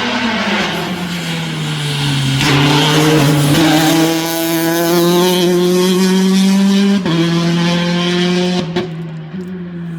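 Rally car engine at high revs, loud, its pitch climbing under acceleration and then dropping sharply about seven seconds in at a gear change, and getting quieter near the end.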